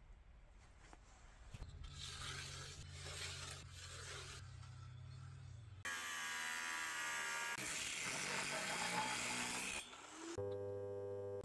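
Scraping and rubbing of hand work over a low steady hum, cut about six seconds in by a louder, harsher, denser noise. Background music with sustained tones comes in near the end.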